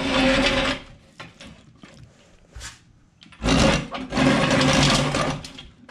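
Heavy metal pedestal base of an old disc sander dragged across a concrete floor, scraping in two pushes: a short one at the start and a longer one about three and a half seconds in.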